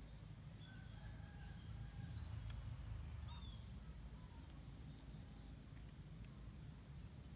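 Faint scattered bird chirps and a few short rising whistles over a steady low rumble.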